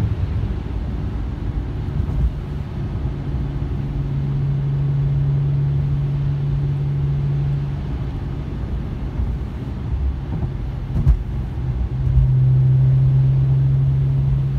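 Mercedes C-Class with an AWE Track exhaust cruising, heard from inside the cabin: a low rumble with tyre noise from the wet road. A steady low exhaust drone comes in for a few seconds about a quarter of the way in and again near the end. A single sharp knock sounds about three quarters of the way through.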